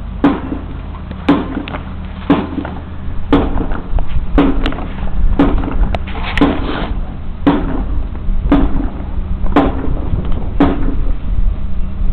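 A steady marching beat during parade drill: a sharp stroke about once a second, eleven in all, over a steady low rumble.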